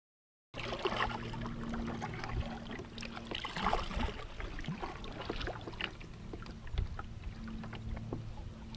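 Double-bladed kayak paddle dipping and pulling through lake water, with splashing and dripping, starting about half a second in. A faint steady low hum runs underneath.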